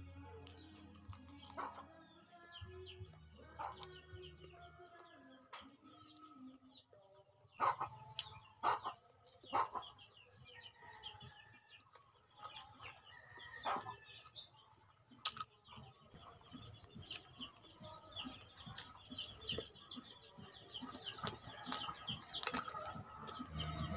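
Close mouth sounds of eating chicken feet: sucking and chewing on the skin and small bones, with several sharp smacks and clicks, loudest about eight to ten seconds in. Birds chirp steadily in the background throughout.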